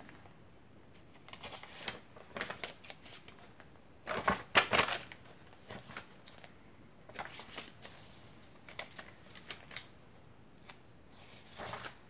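Paper pages of a handmade junk journal being turned and handled by hand: soft rustling and crinkling with light clicks, the loudest page turn about four seconds in.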